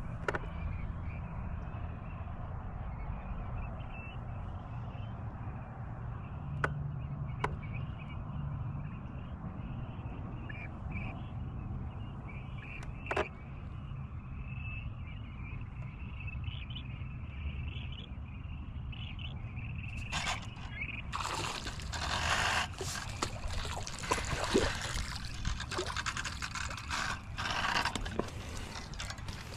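Low steady rumble with a few sharp clicks, then, about twenty seconds in, several seconds of water splashing as a hooked crappie thrashes at the surface beside the boat.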